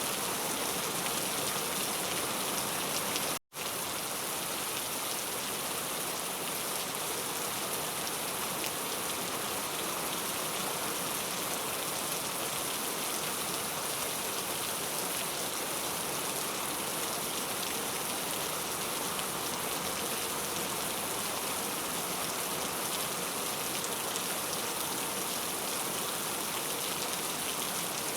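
Heavy rain falling steadily, an even hiss of rain on surfaces. It cuts out for an instant about three and a half seconds in, then carries on unchanged.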